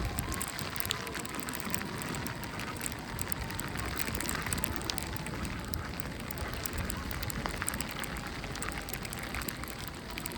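Snowstorm ambience: a steady noisy wash with a dense patter of small crackles and a low rumble underneath.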